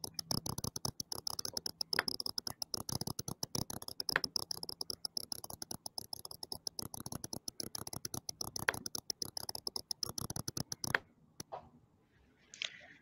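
Constant, rapid ticking interference on a microphone feed, a weird, almost cricket-like ticking over a faint high whine. It cuts off suddenly about eleven seconds in, when the audio switches to a headset microphone, which cures it.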